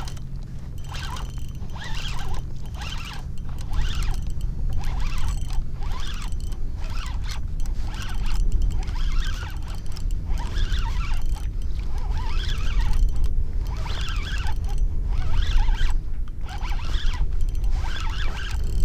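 Spinning reel being cranked steadily while reeling in a hooked fish on a bent rod, its gears whirring in a regular rhythm of about one to two pulses a second, over a low steady rumble.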